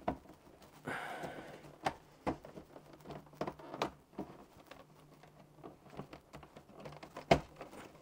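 Scattered clicks, taps and knocks of plastic pry tools working the plastic back cover of an all-in-one PC, with a brief scrape about a second in and the loudest knock near the end.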